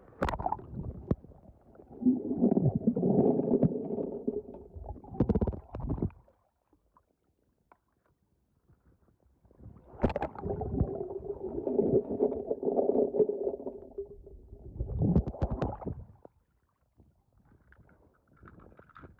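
Muffled gurgling and sloshing of pool water, picked up with the microphone under the surface, in two stretches of several seconds with a near-silent gap between them.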